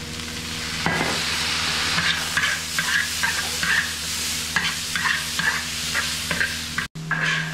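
Stir-fry of pig intestines and green beans sizzling in a large wok over high heat, with a spatula scraping and tossing the food in quick, irregular strokes.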